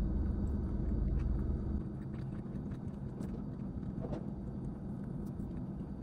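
Low steady rumble heard inside a parked car's cabin, dropping off about two seconds in, with faint clicks and taps from someone eating a sushi hand roll with chopsticks.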